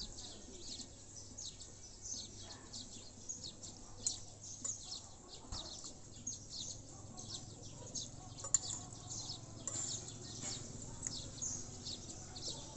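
Small birds chirping over and over in quick, high notes, with a faint low hum underneath.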